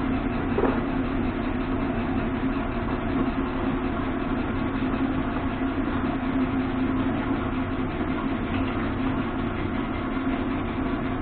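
Steady mechanical hum of machinery running in a machine shop, an even drone that holds unchanged throughout.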